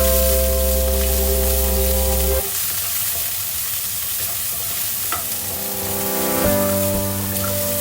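Food frying in a pan with a steady sizzle. Background music plays over it, stops about two seconds in and comes back near the end.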